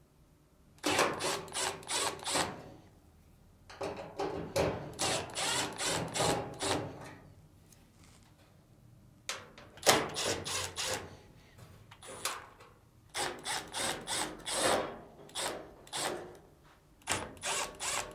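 Screws being driven out of a Samsung dryer's upper frame plate with a screwdriver or driver: five bursts of rapid clicking and whirring, each one to three seconds long, with short pauses between.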